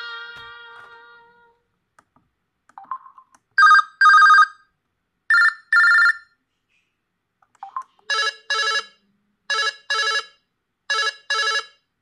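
LG KS360 (Tribe) mobile phone loudspeaker playing its built-in ringtone previews. A melodic tone fades out, and after a short blip a telephone-style ring sounds in two double beeps. A second blip follows, then a different ringtone plays three pairs of double rings.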